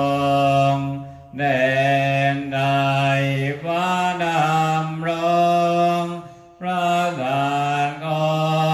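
Theravada Buddhist chanting in Pali: a steady, near-monotone recitation in long held phrases, breaking briefly twice for breath.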